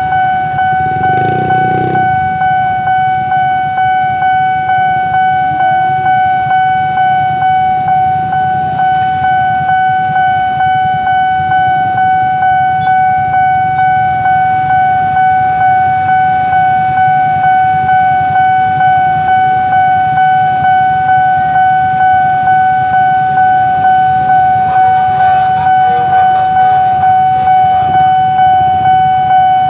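Railway level-crossing warning alarm sounding continuously: a steady high electronic tone pulsing about one and a half times a second. A low rumble of idling motorcycles waiting at the barrier runs under it.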